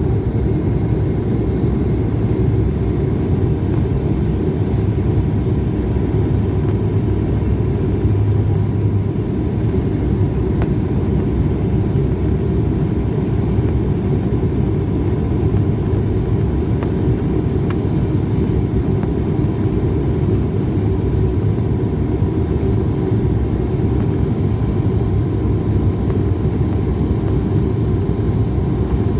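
Turboprop airliner's engines and propellers heard from inside the cabin as a steady drone, with a low hum and a few steady higher tones, during descent with the landing gear down.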